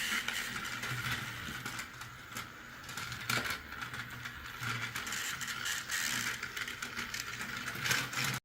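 Battery-powered toy truck and airplane running along a plastic puzzle track, their small electric motors and plastic gears whirring steadily with scattered clicks. The sound cuts off suddenly at the end.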